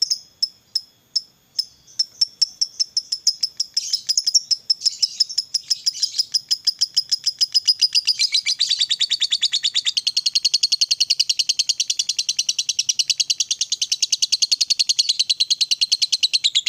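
Lovebird calling: sharp, high chirps repeated a few times a second, quickening into a fast continuous chattering trill from about eight seconds in. This is the long 'ngekek' chatter that hobbyists prize in a fighter lovebird.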